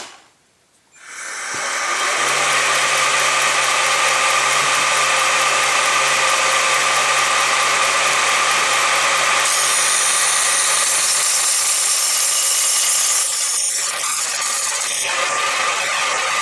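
A homemade wheel-polishing jig starts up about a second in: its motor spins the wheel and runs steadily with a low hum and a dense mechanical rush. The sound changes character partway through and drops slightly in level near the end.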